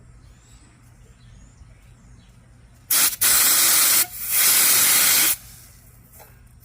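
Refrigerant gas hissing out of a hose fitting on the recovery setup in two loud bursts of about a second each, starting about three seconds in, over a low steady hum: the charge left inside the line escaping as the hose is worked on after the liquid side is closed.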